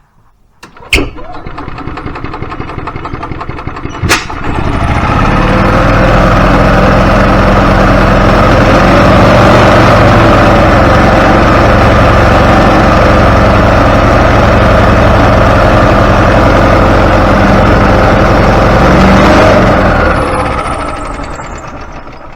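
Old Yamaha gas golf cart engine cranking on its starter after a sharp click about a second in, catching with another click about four seconds in and running loud and steady. Near the end it winds down and fades out.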